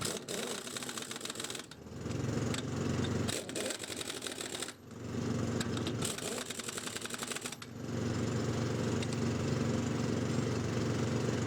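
Harbor Freight Earthquake 1-inch air impact wrench running in several bursts of a few seconds each, with a fast rattle. It is running again after rotor vanes that had seized were freed.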